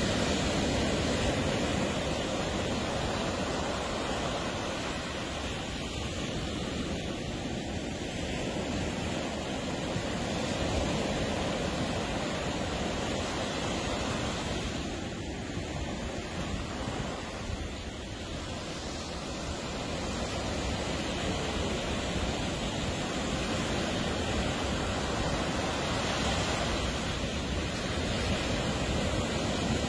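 Ocean surf breaking and washing up a beach: a steady rush of noise that slowly swells and eases.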